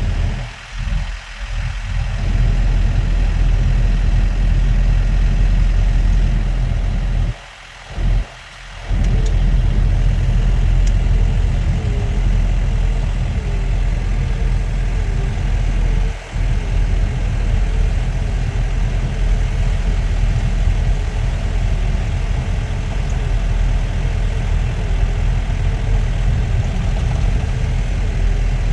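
Car driving, with a steady low rumble of engine and road noise. The sound drops out briefly a few times in the first half.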